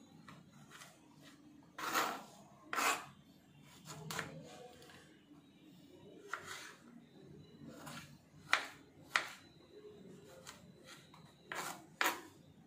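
A knife cutting fruit into pieces, about nine short, sharp, irregular strokes that often come in quick pairs.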